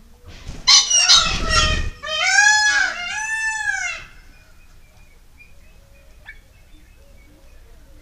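Male ring-necked pheasant crowing: a loud harsh call about half a second in with a brief whirr of wingbeats, followed by two drawn-out calls that end about four seconds in.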